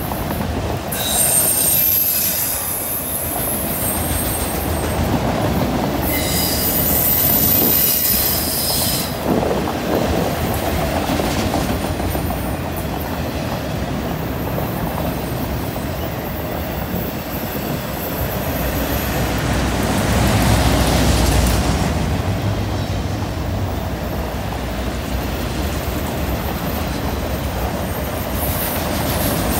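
Freight train of autorack cars rolling past on a curve, a continuous rumble and clatter of steel wheels on rail. High-pitched wheel squeal rises about a second in and again from about six to nine seconds in, and the low rumble swells about twenty seconds in.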